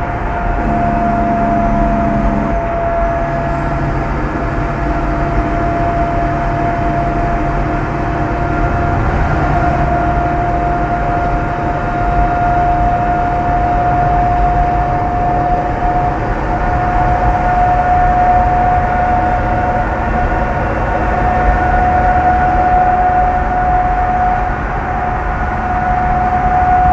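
Peterbilt 389 semi truck's diesel engine running under a deep rumble, with its turbo whistling as one steady high tone that steps up slightly about nine seconds in and holds.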